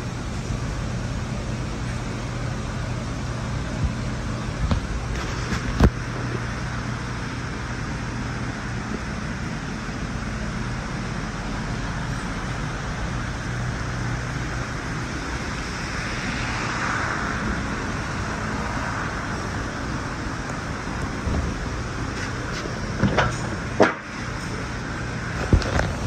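Steady low mechanical hum throughout. Near the end comes a cluster of clicks and a knock as a car door is opened.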